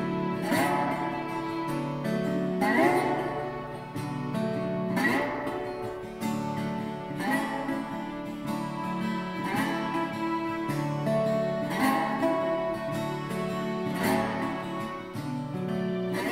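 Instrumental background music on acoustic guitar, chords strummed slowly, about one strum every two seconds.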